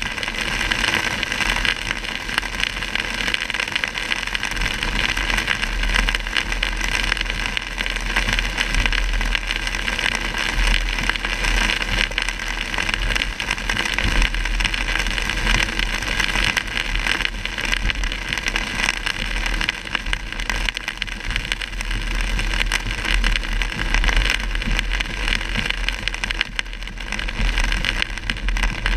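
Heavy rain on a moving car, heard from inside the cabin: a steady hiss of rain on the roof and windshield over a low road rumble.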